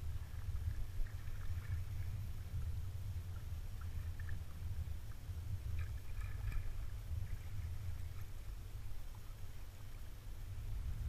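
Kayak paddle strokes dipping and splashing in the water, with water lapping against the hull, over a steady low rumble.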